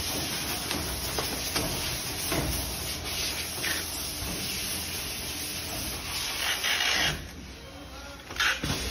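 Plastic film rustling and crinkling as a pillow is pushed into a pillow vacuum-bagging machine, with scattered small clicks over the machine's noise. It dies down about seven seconds in, and a brief hiss follows near the end.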